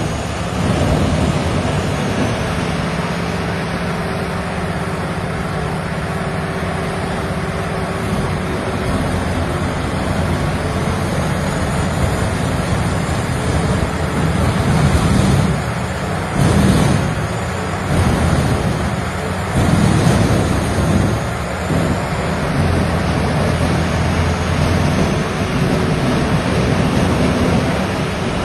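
Large Vermeer wood chipper running at full speed, with a steady engine and machine drone and several louder surges in the middle stretch as material goes through it.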